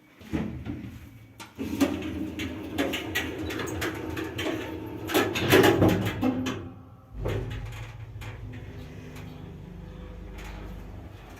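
A 2008 ShchLZ passenger elevator: its sliding doors clatter and clank for several seconds, then about seven seconds in the car sets off with a steady low hum. The hum is unusually strong.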